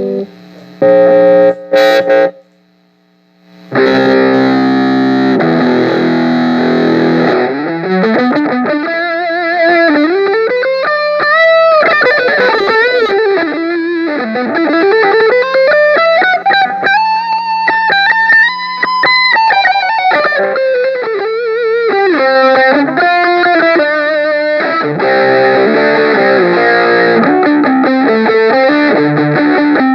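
Electric guitar played through a Zoom G7 multi-effects processor with a distorted, effected tone. After a short break about three seconds in, the playing resumes with long sweeping glides of pitch up and down, then settles back into chords and riffs near the end.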